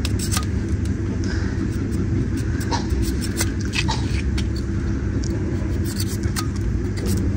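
Goat hoof being trimmed with a hand blade: scattered short sharp clicks of the blade cutting through hoof horn, over a steady low mechanical rumble.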